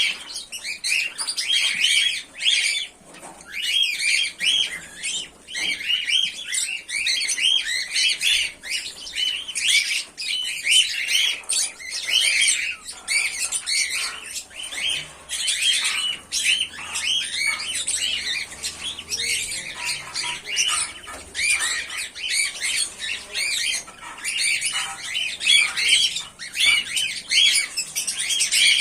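Pearl cockatiels chirping and squawking continuously, many short, rapid calls overlapping one another.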